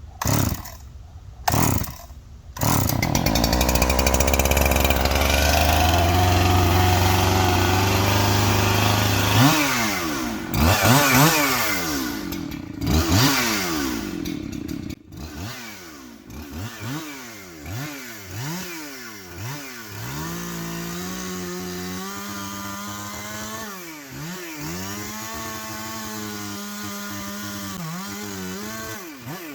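Husqvarna chainsaw being pull-started: a few short bursts in the first couple of seconds, then it catches and runs fast and steady. From about ten seconds in it is revved up and down again and again, then settles to a steadier idle with a few more blips of the throttle.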